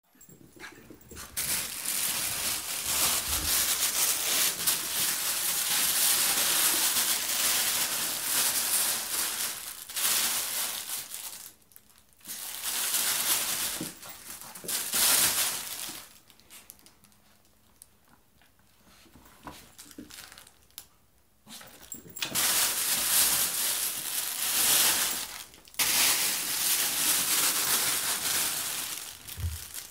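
Border terrier puppy at play scrambling over a crinkly fabric pet play tunnel, making long stretches of loud crinkling and rustling, with a quieter spell of a few seconds midway.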